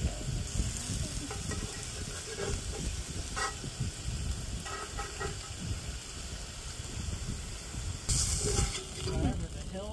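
Walleye fillets frying in a pan of oil, sizzling steadily, with a louder spell of sizzle about eight seconds in.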